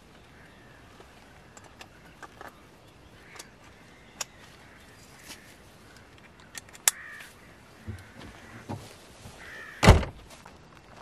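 Volkswagen Tiguan's tailgate slammed shut with one loud thump about ten seconds in. Before it come small clicks of backpack buckles and straps being fastened, with crows cawing now and then in the background.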